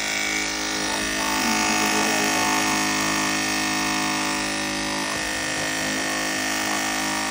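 Chris Christensen Artemis cordless pet clipper running with a steady, even buzz while its blade is held in a cup of blade wash solution, the liquid churning against the moving blade to clean out hair and oil.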